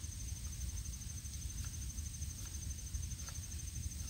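Outdoor ambience of insects trilling steadily at a high pitch over a low rumble, with a few faint clicks.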